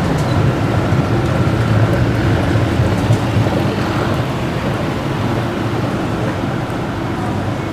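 Steady low mechanical rumble of an underground MRT station, the running of its escalators and trains, slowly fading toward the end.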